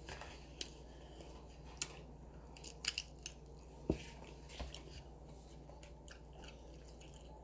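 A person biting into and chewing a taco close to the microphone: soft chewing broken by a series of short, sharp crunches and clicks, the loudest a little under four seconds in, over a low steady hum.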